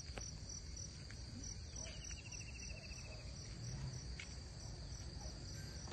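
Insects chirping steadily with a high, evenly pulsing note. A lower rattling trill joins about two seconds in and lasts about a second and a half.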